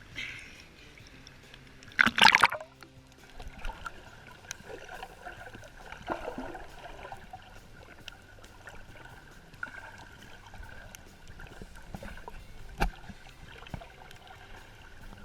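Water splashing and sloshing around the swimmers, with one loud splash about two seconds in, then a quieter wash of water with scattered small clicks.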